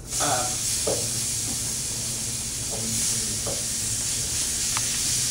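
Food scraped from a pan onto a hot electric griddle, starting to sizzle loudly all at once and sizzling steadily, with a few light scrapes of a wooden spoon.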